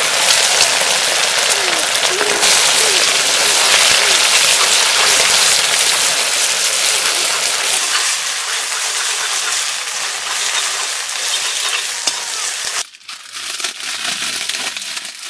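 Liquid poured into a very hot iron wok sizzling hard, a loud dense hiss that eases a little and then cuts off abruptly about 13 seconds in. After it comes a fainter crinkling of a packet being torn open.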